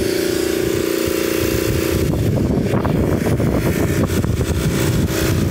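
Mytee Escape 800 psi pressure washer running with its diesel-fired water heater, set at about 400 psi for the wand. A steady hum for the first two seconds, then it turns into an uneven, rougher rush.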